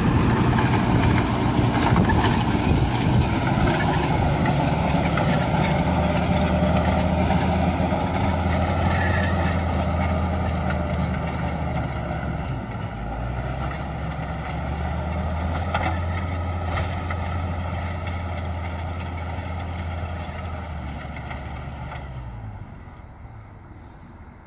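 Tractor engine running steadily under load while pulling a rotary tiller and a three-row bed-forming plastic mulch layer through the soil. The engine note dips briefly about halfway through, and the sound falls away near the end.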